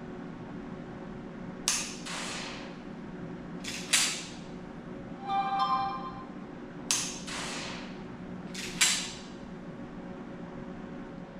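Dry-fire of a 9mm Springfield pistol loaded with a laser training cartridge: four sharp metallic clicks of the trigger and striker, each closely followed by a second click, spaced a couple of seconds apart. A short pitched tone sounds about halfway through.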